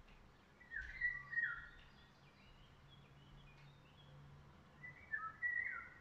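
A songbird singing two short whistled phrases of falling notes, one about a second in and another near the end, with fainter high twittering between them.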